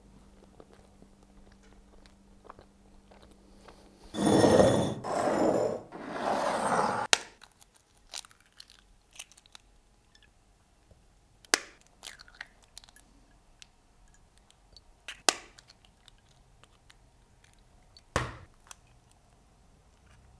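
A loud rushing noise lasting about three seconds, then eggs being cracked against the rim of a glass bowl: three sharp single knocks a few seconds apart as the whites are separated from the yolks.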